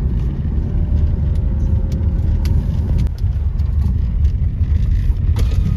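Steady low road and engine rumble of a car driving, heard from inside, with a few light clicks and knocks.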